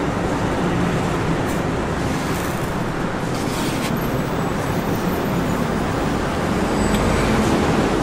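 Steady street traffic noise, with a low rumble that swells near the end and a few faint clicks.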